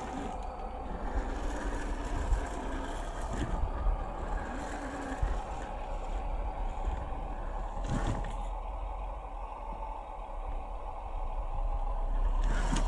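1/10-scale RC crawler's 550-size electric motor and drivetrain whining steadily as it crawls over cracked dry mud, with a few sharp knocks and scrapes from the tyres and chassis on the hard ground, getting louder near the end.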